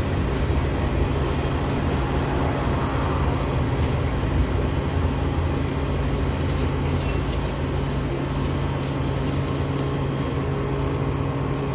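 Train running with a steady low drone and constant hum, with a few faint clicks in the second half.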